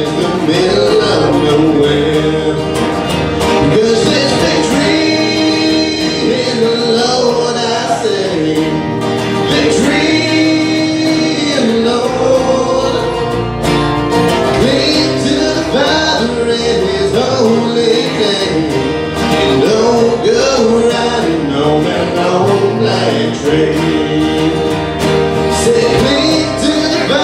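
Live country-gospel song: a man singing over two strummed acoustic guitars and an electric bass guitar.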